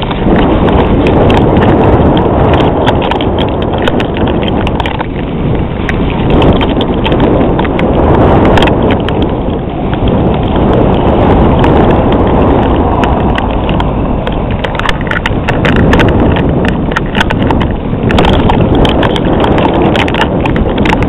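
Wind buffeting a handheld camera's microphone: a loud, uneven rumble, with irregular clicks and knocks from the camera being handled while walking.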